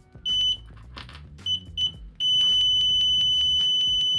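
BSIDE ADMS9CL multimeter's continuity beeper sounding as its probes make contact: a short high-pitched beep, two quick chirps, then a long steady tone held for about two seconds. It is definitely loud, about 88 dB on a sound meter.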